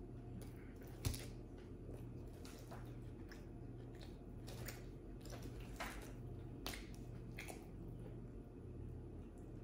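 Close eating sounds of pepperoni pizza being chewed: soft, wet mouth clicks and smacks at an irregular pace, with one sharper click about a second in. A low steady hum runs underneath.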